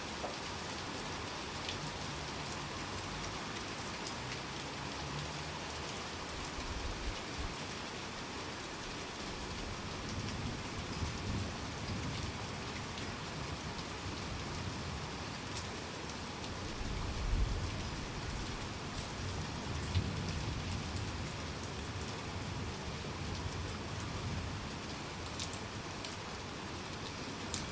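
Heavy rain falling steadily on surfaces, with low rumbles of distant thunder swelling about a third of the way in and again past the middle.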